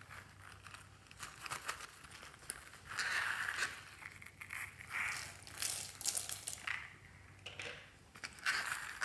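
Small zippered silicone coin purse packed with red beads and glitter being unzipped and handled, its zip and the beads inside making irregular scratchy, crinkly rustles in several bursts.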